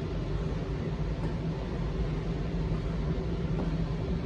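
Steady low mechanical hum with an even hiss over it, holding constant throughout.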